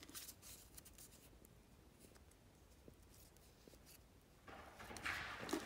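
Faint handling of flat fused plastic-bead craft pieces: a few light clicks and scrapes, then a louder rustling scrape near the end as a piece is picked up.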